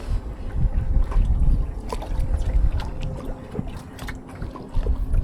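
Wind rumbling on the microphone, with water lapping around a small boat and scattered small knocks and clicks.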